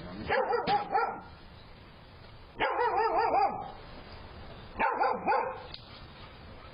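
A dog barking in three quick volleys, each about a second long, a couple of seconds apart.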